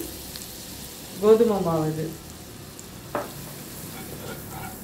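Butter and wheat flour sizzling in a pan as they are stirred for a white sauce, with one sharp knock of the spoon or pan about three seconds in. A short bit of voice breaks in about a second in.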